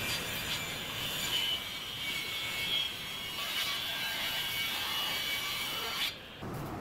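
Table saw ripping a wide redwood tabletop along its length, the blade running with a steady high whine as the board is fed through. The sound cuts off abruptly shortly before the end.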